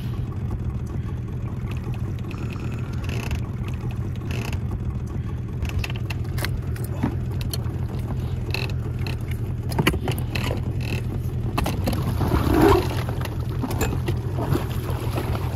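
Small motorboat's outboard engine running steadily underway, a constant low hum, with scattered knocks and rattles and a louder burst about three-quarters of the way through.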